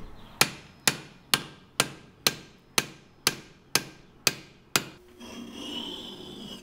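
A hammer strikes the steel head of a forged bearded hatchet ten times, about two a second, each blow ringing, driving the head down onto its wooden handle. About five seconds in, a whetstone starts rubbing along the hatchet's edge, sharpening it.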